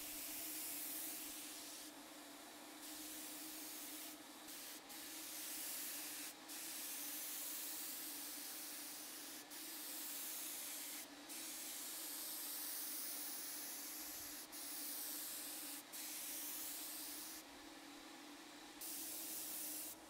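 Hose-fed paint spray gun hissing as it sprays paint in passes. The hiss cuts out briefly about ten times between strokes, over a steady low hum.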